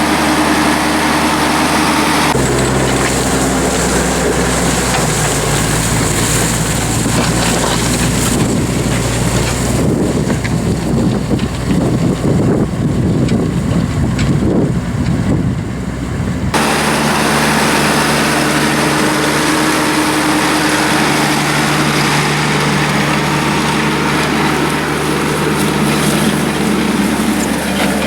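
Engine running steadily throughout. The engine note changes abruptly a couple of seconds in and again about two-thirds of the way through. In the middle stretch, wind buffets the microphone.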